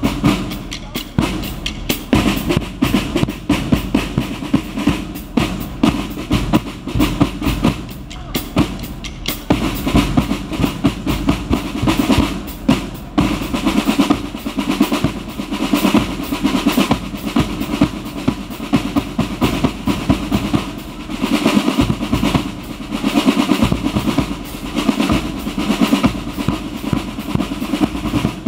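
Six marching snare drums of a military band's drum section playing together: a fast, continuous cadence of stick strokes.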